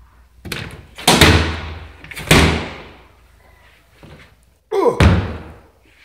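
Plastic lids of a Della twin-tub portable washing machine being banged shut: a bang about half a second in, two loud bangs about a second apart, then a quick double bang near the end, each ringing briefly.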